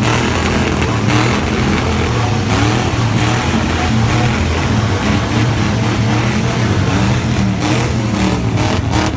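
Car engine running loud and being revved, its pitch rising and falling, with a quick run of sharp exhaust pulses near the end.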